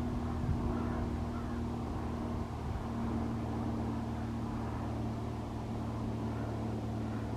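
A steady, low engine-like drone with an even hum that shifts slightly in pitch about three seconds in.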